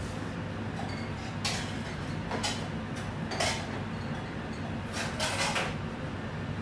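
Metal pots and utensils clattering and scraping in three short bursts, then a longer rattle about five seconds in, over a steady low machine hum.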